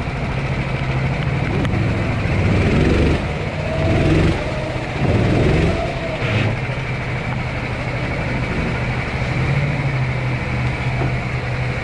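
Honda GX270 single-cylinder four-stroke engine of a Sodi SR4 kart running at low revs, with a few short throttle surges about three to six seconds in, then running steadily.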